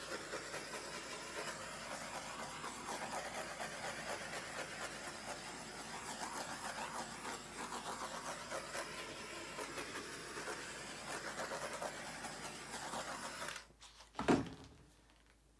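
Handheld butane torch flame hissing steadily as it is swept over freshly poured epoxy resin to pop surface bubbles. The flame cuts off near the end, followed by a short knock.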